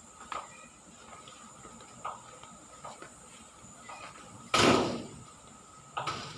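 Short, faint calls from a caged myna, broken by a loud sudden bang about four and a half seconds in and a second, smaller bang near the end.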